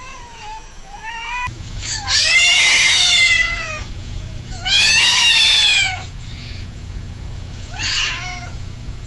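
Cat screaming, the aggressive scream of a fighting cat: a low wavering yowl, then two loud screams of about a second each a couple of seconds apart, and a shorter cry near the end.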